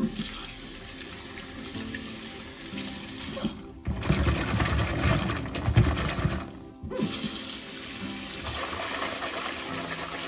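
Kitchen tap running into a plastic bowl of green beans in a stainless steel sink, with hands rubbing and swishing the beans through the water. The water sound breaks off briefly twice, near 4 s and 7 s in. Background music plays over it.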